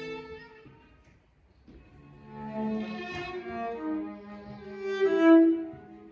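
Viola and cello playing improvised music. A note dies away in the first second. After a pause of about a second, the strings come back in with a phrase of changing notes over a held low tone, loudest about five seconds in before fading.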